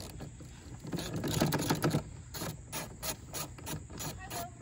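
Hand ratchet on a socket extension clicking as a bolt is turned: a quick run of clicks about a second in, then a steady rhythm of about four to five clicks a second.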